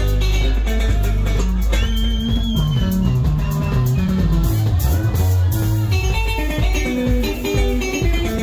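Live band playing an instrumental passage: electric bass guitar holding a steady line under picked electric lead guitar notes, with drums keeping time.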